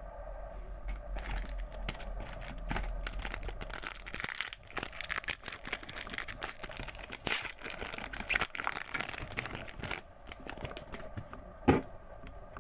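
A plastic trading-card pack wrapper being torn open and crinkled by hand, a dense crackling run lasting several seconds. A single sharp tap comes near the end.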